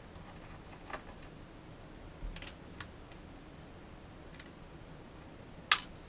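A few light clicks and taps of small parts and tools being handled in an opened Mac Mini, with one sharper, louder click near the end.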